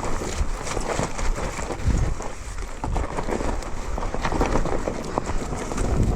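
Irregular crunching steps and knocks on loose rocky ground, with strong low thumps about two seconds in and near the end.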